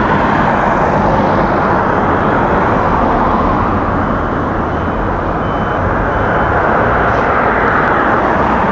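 Steady, loud vehicle noise: a constant even rush with no rise or fall, like a nearby engine or traffic running close to the microphone.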